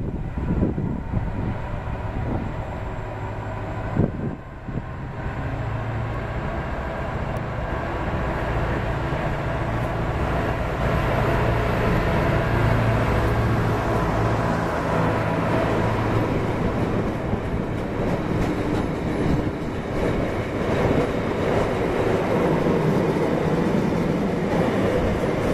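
Class 59 diesel locomotive with its EMD two-stroke V16 engine running as it approaches and passes close by, with a deep steady hum, followed by a long rake of loaded stone box wagons rumbling and clattering past on the rails. A single sharp knock about four seconds in.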